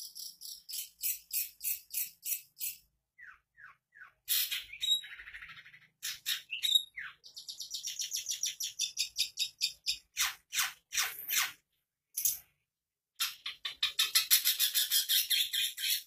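Caged long-tailed shrike (pentet) singing: bursts of sharp, rapidly repeated chips and trills with a few short downward-sliding whistles, broken by a pause of about a second just before the last third. Its song is filled with mimicked phrases of the greater green leafbird (cucak ijo) and the kapas tembak bulbul.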